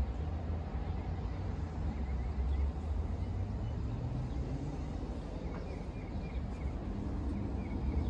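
Steady low rumble of outdoor ambience, with a few faint high chirps.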